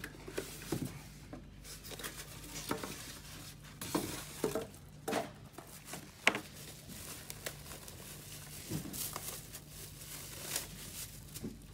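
Packaging being handled while a car stereo is unboxed: a box opened and a plastic bag crinkled, with irregular rustles and light knocks.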